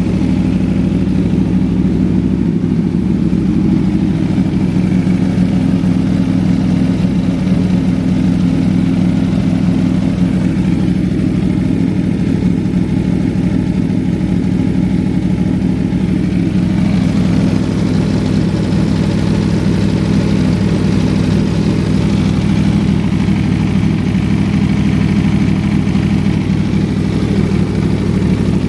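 Aprilia Tuono V4 1100's 65-degree V4 engine idling steadily, with no revving; its sound turns a little brighter and hissier about two-thirds of the way through.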